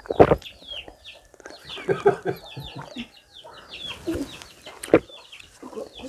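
Chickens clucking amid many short, high, falling chirps. A sharp knock comes just after the start and another near the end.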